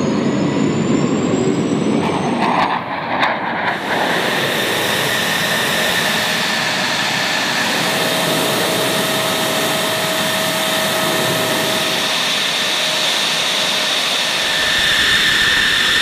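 F-16 fighter jet engine running on the ground: a steady loud rush with a high turbine whine. The whine rises slightly in the first couple of seconds, with a brief break about three seconds in.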